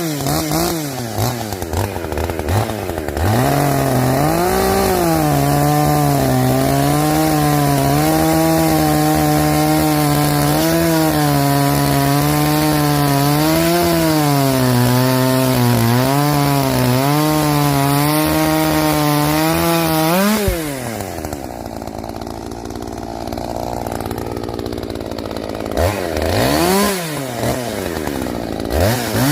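Husqvarna 543XP two-stroke chainsaw running hard while cutting wood, its engine note sagging and wavering under load for most of the time. About 20 seconds in the throttle is released and it drops to idle, then it is blipped up and back down twice near the end.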